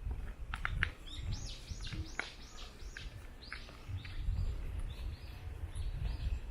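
A songbird singing a run of quick arching whistled notes, about three a second, the later ones a little lower in pitch, after a few short sharp chips. Low thuds of footsteps on the trail run underneath.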